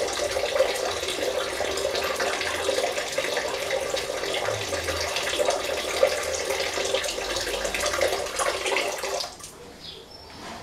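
Water running out through a thin hose that drains a homemade PVC-box quail waterer, splashing steadily and then stopping abruptly about nine seconds in.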